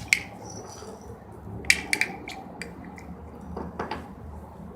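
Scattered sharp clicks and light knocks of small hard objects being handled, the loudest a quick pair about two seconds in and a smaller cluster near the end, over a low steady hum.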